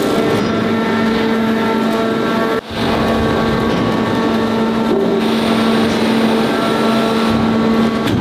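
Heavy forging machinery running: a steady, loud mechanical drone with a constant hum, as the press and manipulator work the red-hot shell. The sound drops out sharply for a moment about two and a half seconds in, then carries on unchanged.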